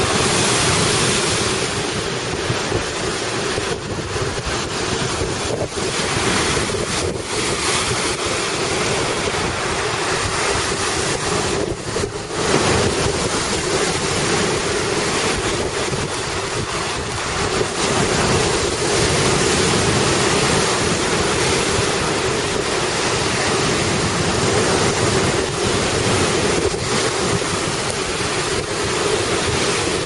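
Storm waves on Lake Superior crashing and breaking against the shore in gale-force wind, with heavy wind buffeting the microphone. The wash and wind run on steadily, with a louder surge about twelve seconds in.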